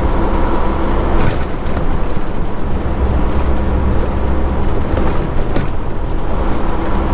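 Semi-truck's diesel engine and road noise heard from inside the cab while cruising at highway speed: a steady, loud low drone. There is one brief knock a little over a second in.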